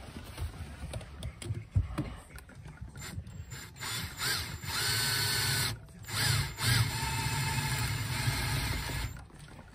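Cordless drill boring holes through the car's sheet-metal floor for a shifter mount. Light ticks and scrapes come first. Then the drill runs with a whine in two bursts of about two and three seconds, with a brief pause between.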